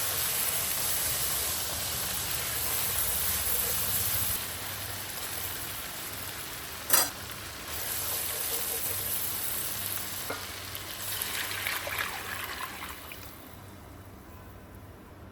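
Food sizzling in hot oil in a pan, a steady hiss that dies down near the end. A sharp knock of a utensil on the pan about seven seconds in is the loudest moment, with some light clatter a few seconds later.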